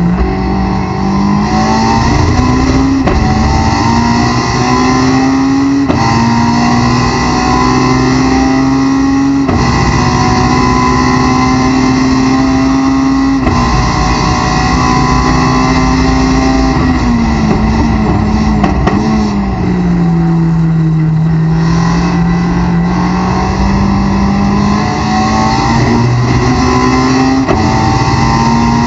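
2005 Honda S2000's 2.2-litre four-cylinder engine at full throttle from inside the race car's cockpit. It revs up through the gears with an upshift every few seconds, then drops in pitch under braking and downshifts about two-thirds of the way in, and climbs again near the end. Road and wind noise run under it.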